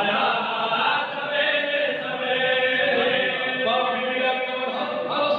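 A man's voice chanting a religious recitation into a microphone in long, held melodic phrases without a break.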